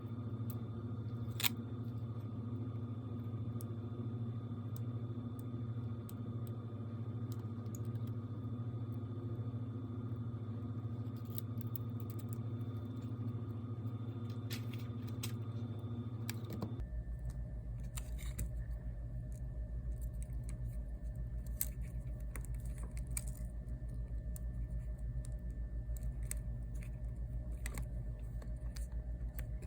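Steady electrical hum from running bench equipment, with scattered small clicks and taps of handling. About 17 s in, the hum switches suddenly to a deeper tone.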